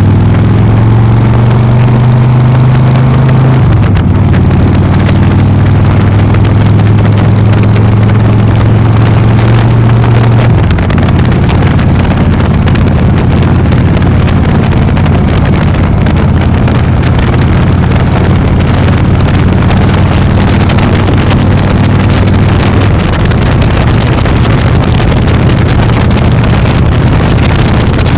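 Motor scooter engine running while riding, loud and steady, its note shifting lower about four seconds in and again about ten seconds in.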